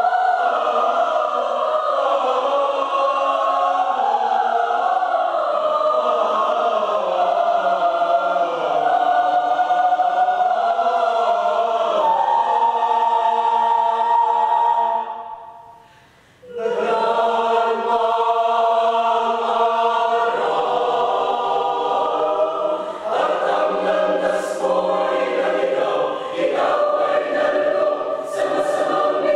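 Mixed choir of men's and women's voices singing sustained chords. About fifteen seconds in the choir fades out, pauses for about a second and a half, and comes back in together.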